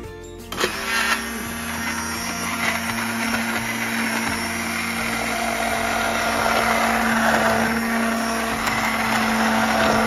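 Hand-held immersion blender switched on about half a second in and running steadily in a pot of chunky vegetable soup, a constant motor hum over the churning of the liquid.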